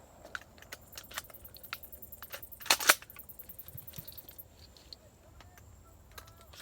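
Small sharp clicks and rattles of handling, with a louder double clack about three seconds in. A high, rapid pulsing buzz of cicadas sounds behind them for the first few seconds.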